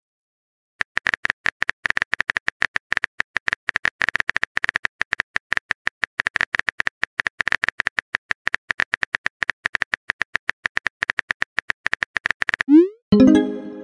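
Texting app's synthetic keyboard clicks, rapid and even at several a second, as a message is typed. Near the end comes a quick rising swoosh and a louder short pitched tone, the app's message-sent sound.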